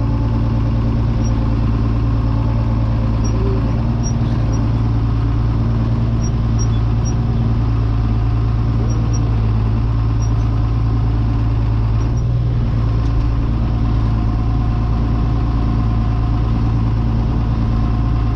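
Farm tractor's diesel engine running steadily, heard from inside the cab, while the tractor backs up a grain cart in first reverse gear.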